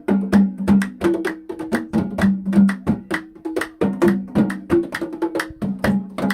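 Music led by fast, rhythmic hand percussion: a dense run of sharp strikes, several a second, over low ringing drum notes.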